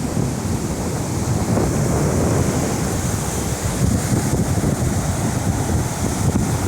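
Ocean surf washing onto the beach, a steady hiss of breaking waves, with wind buffeting the microphone in a low rumble.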